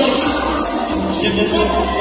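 Cumbia sonidera dance music played loud over a sonidero sound system.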